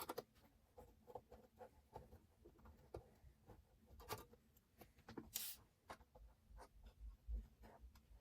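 Faint scattered clicks, taps and rubbing as small computer parts and cables are handled, with one brief, brighter scrape a little past halfway.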